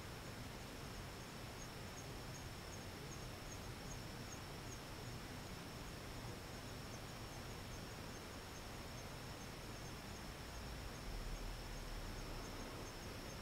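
Faint night insects chirping: a steady high trill with regular short chirps, about three a second, over a constant hiss. A soft low rumble comes about eleven seconds in.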